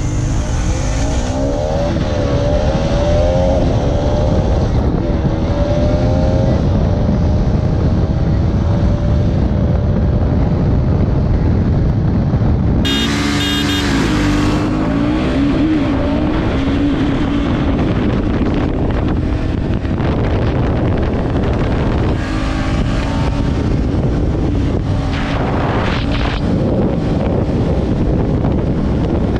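Single-cylinder sport motorcycles, a Bajaj Pulsar RS 200 and a KTM Duke 250, accelerating flat out through the gears in a drag race. The engine pitch rises and drops back at each upshift, under heavy wind rush on the onboard microphone.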